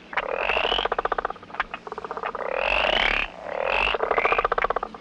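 Toads calling in a chorus: rapid pulsed trills about a second long, repeating and overlapping one another.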